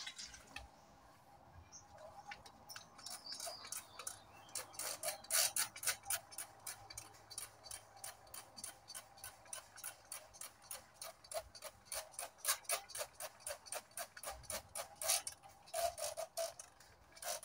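Plastic trigger spray bottle misting leaf litter and moss, squeezed rapidly over and over at about four squeezes a second, each squeeze a short click and spritz; the squeezing starts about two seconds in.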